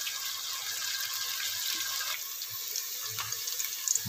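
Sliced onions sizzling in hot ghee in a steel pot as they fry toward golden brown: a steady hiss that thins a little about halfway through.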